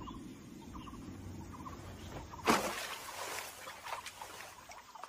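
Birds calling in short, repeated chirps over a low rumble. About halfway through, a sudden loud rush of noise lasts about a second.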